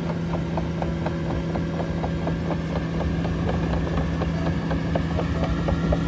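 Caterpillar AP655F tracked asphalt paver's diesel engine running at a steady speed, with a rapid regular clicking of about five ticks a second as it drives on its crawler tracks.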